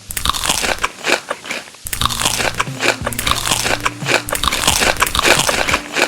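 Close-up crunchy biting and chewing of crisp food, a quick run of sharp crunches. Low background music comes in about two seconds in.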